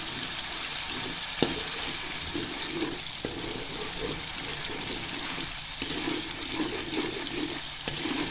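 Coconut milk boiling down in a metal wok, bubbling and sizzling steadily as the oil separates from the curds. A spatula stirring it clicks against the pan a few times.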